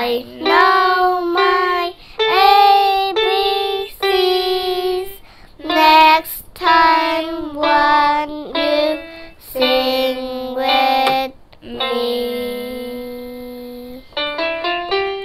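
A girl singing a song while she plays along on a small electronic keyboard, in short phrases with a long held note that fades near the end. The singing then stops and a few quick keyboard notes follow.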